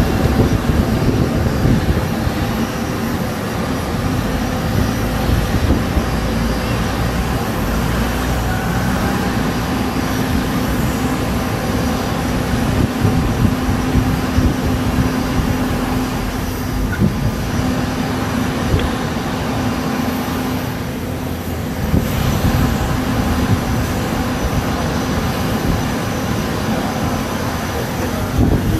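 Steady drone of aircraft-apron machinery with a constant low hum running through it, with no sudden events.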